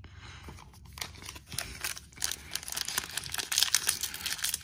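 Foil trading-card pack crinkling and tearing as it is pulled open by hand, a dense crackle that gets louder after about three seconds.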